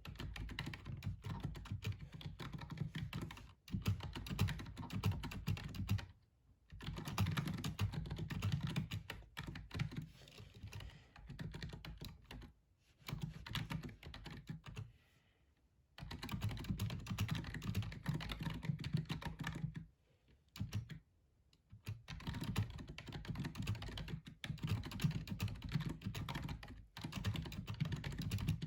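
Fast typing on a gaming keyboard: a dense run of key clicks, broken by a few short pauses of a second or two.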